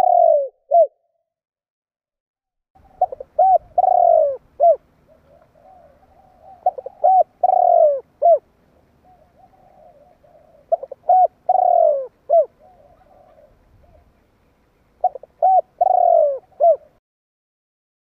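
Spotted dove cooing: four phrases a few seconds apart, each a run of short coos ending in a longer, falling coo.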